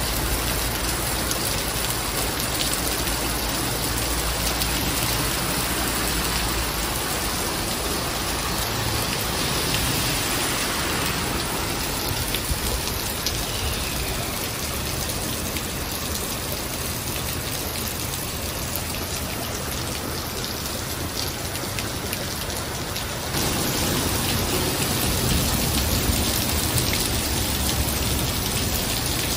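Heavy rain pouring onto pavement and a flooded street: a steady, dense hiss that steps up suddenly louder about 23 seconds in.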